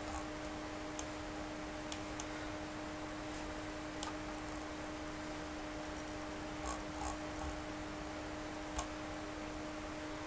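Computer mouse clicking five times at irregular intervals, two of the clicks close together about two seconds in. A steady low hum runs underneath.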